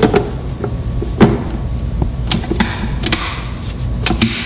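A cover being fitted and pushed into place: a string of irregular sharp knocks and clicks, the loudest about a second in.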